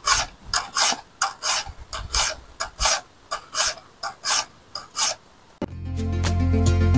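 A hand file rasping across the teeth of a new jigsaw blade in short strokes, about two a second, sharpening alternate teeth because the unfiled new blade cuts slowly. About five and a half seconds in, the filing stops and guitar music starts.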